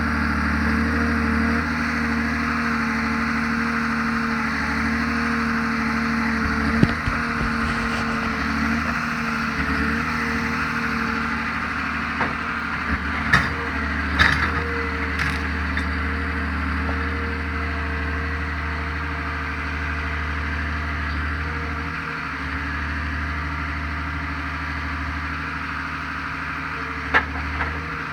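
Forestry forwarder's diesel engine running steadily while its crane unloads logs. A handful of sharp knocks, about five, come from logs striking each other or the ground: one early, three close together around the middle, one near the end.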